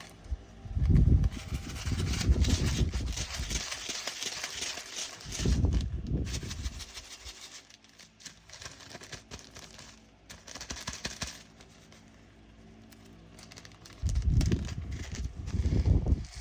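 Small resin diamond-painting drills rattling and clicking as they are tipped and shaken from a bag into a small plastic storage pot by hand. They come in three bursts, with heavier handling knocks among them.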